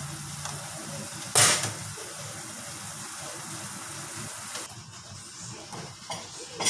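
Sauce simmering in a stainless steel wok on an induction cooker, a steady bubbling hiss, with one short loud knock about one and a half seconds in. The hiss drops away about two-thirds of the way through.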